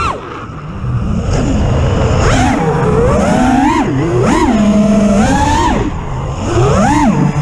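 Brushless motors and propellers of an FPV freestyle quadcopter (Supafly Flipmode frame, T-Motor F60 Pro II 2500kv motors) whining as the throttle is worked. The pitch drops sharply at the start as the throttle is cut, then swoops up and down in several quick surges with one held high stretch, the sound of punches, flips and rolls.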